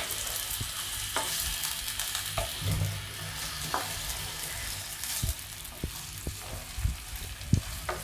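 Sliced chicken and onions sizzling in oil in a nonstick frying pan, stirred with a wooden spoon that knocks against the pan now and then.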